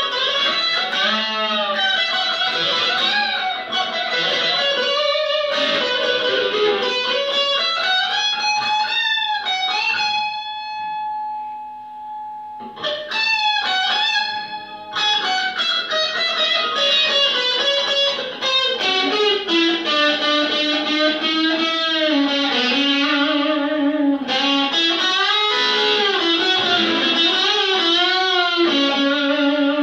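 Explorer-style electric guitar played solo: lead lines full of string bends and slides, with one note held and left to fade about ten seconds in, then busy playing again.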